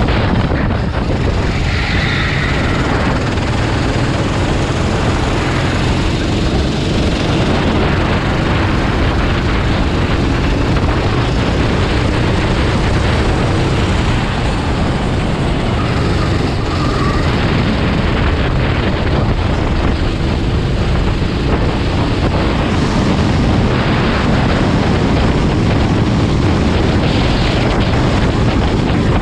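Loud, steady rumble of wind buffeting the microphone, with vehicle noise mixed in.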